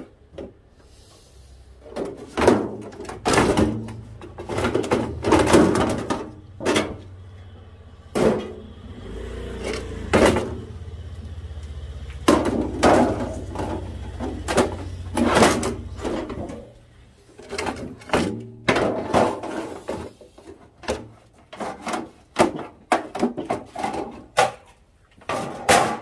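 Sheet-steel outer cover of a microwave oven being worked loose and lifted off its chassis: many separate knocks and metallic clatters, irregular throughout.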